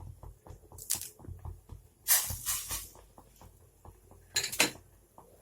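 Pot of water at a boil with small bubbling pops several times a second, broken by three short rustling bursts, the loudest about two seconds in, as leaves are dropped into the water.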